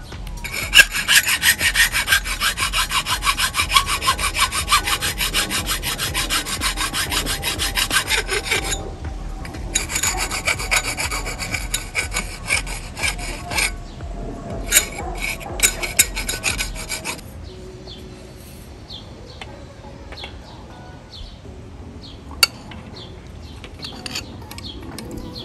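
Rapid, rhythmic back-and-forth rasping strokes of a hand tool working a hard material. The strokes come in two long bouts with a short pause between them, then a few separate strokes before it goes quieter.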